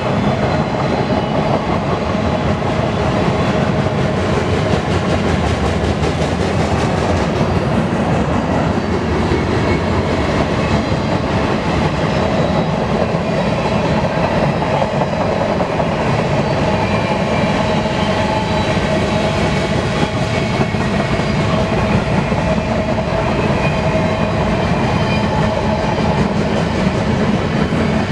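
BNSF freight train cars rolling past on the rails, a steady loud rumble of steel wheels on track with faint steady high tones over it.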